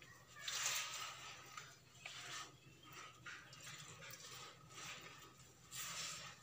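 Soft, repeated rubbing and squishing of a hand working flour and warm water together into dough in an earthenware bowl, in uneven strokes about once a second.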